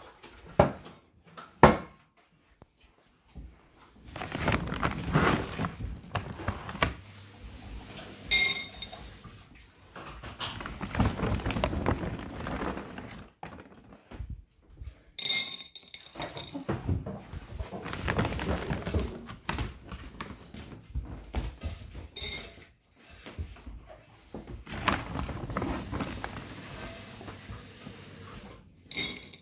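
Rustling of a plastic sack of dry dog food as kibble is scooped out by hand, with several short knocks and clicks among it.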